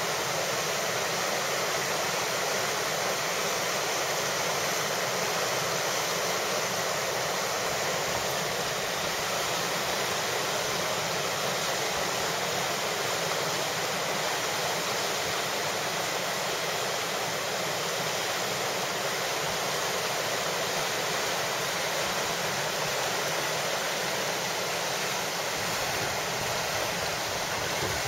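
Whitewater river rapids rushing, a steady unbroken rush of churning water.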